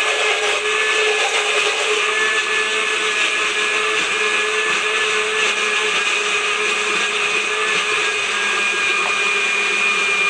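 Electric countertop blender running steadily, blending fruit, papaya seeds and water into juice: an even motor whine that holds one pitch throughout.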